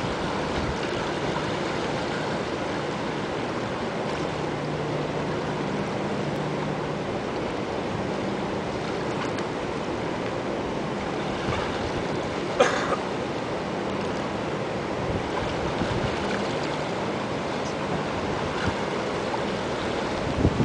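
A steady rush of choppy, storm-swollen river water washing against a railing and over a flooded walkway, mixed with wind. There is a faint low hum through the middle and a single sharp click about twelve and a half seconds in.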